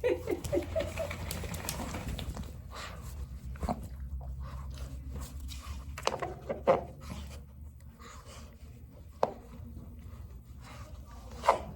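Dogs moving about in a small room: panting, a short run of whiny pitched notes in the first second, and scattered knocks and rustles, with sharper ticks about two-thirds of the way in and near the end.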